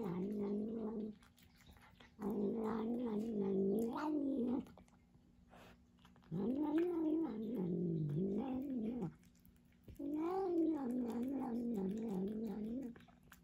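Domestic cat making long, wavering, pitched calls while it eats wet food, four drawn-out calls of one to three seconds each with short pauses between, and faint chewing and licking clicks in the pauses.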